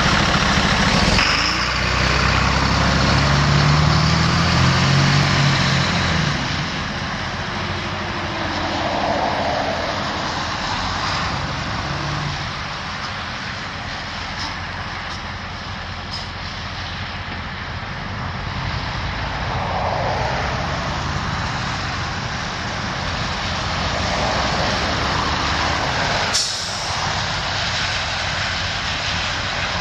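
Sterling L8500 truck's Cummins 7.2-litre inline-six diesel engine running steadily, loudest in the first several seconds. A brief sharp burst comes near the end.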